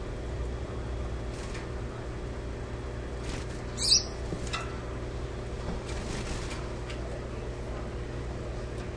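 Gouldian finches giving a few faint, short calls and small rustles, with one brighter high chirp about four seconds in, over a steady low hum.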